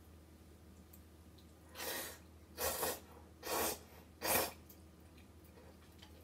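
Four short, breathy mouth-and-breath sounds in quick succession, the last the loudest, over a faint steady hum.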